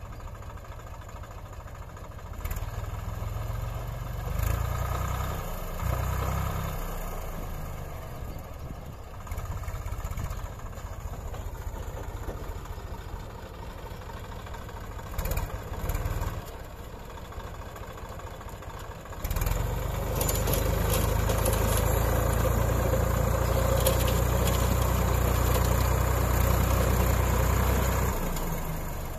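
Farm tractor's diesel engine running steadily as it pulls a rotary tiller through the soil. It gets much louder about two-thirds of the way through as the tractor passes close, then eases off near the end.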